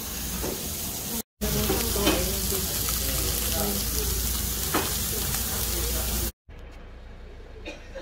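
Pork belly sizzling on a hot stone grill plate: a steady frying hiss with a couple of light knocks. It cuts off abruptly about six seconds in, leaving a much quieter steady background.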